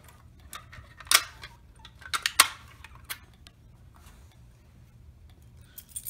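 Sharp mechanical clicks and clacks of a fire alarm pull station being reset with its key: one click about a second in, a cluster of louder clacks around two seconds in, and a lighter click about three seconds in.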